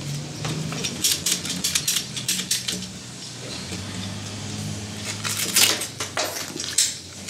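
Hand-held ratchet pipe cutter biting through a CPVC hot-water pipe, clicking in two quick runs as the handle is squeezed shut.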